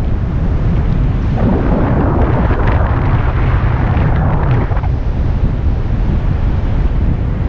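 Wind buffeting the microphone: a heavy, steady rumble that swells louder and rougher from about a second and a half in until nearly five seconds in.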